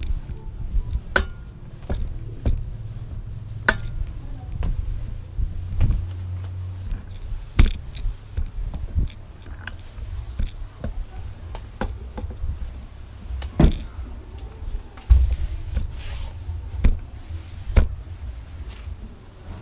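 Scotch-Brite flat mop being worked over floor and wall tiles: low rubbing and handling rumble with irregular sharp knocks and taps as the mop head and handle bump about.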